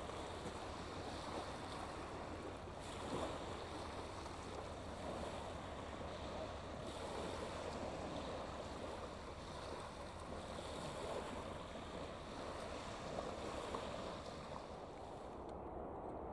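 Small waves lapping onto a shingle beach: a wash of water over pebbles that swells every few seconds. Near the end it gives way to a duller, quieter background.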